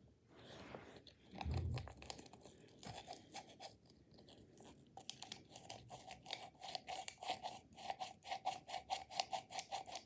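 Small paper Sea-Monkeys packet being flicked and crinkled between the fingers to shake its fine powder into a glass of water: a crackly rustling that turns into a quick, regular ticking of about six taps a second in the second half, with one dull thump about a second and a half in.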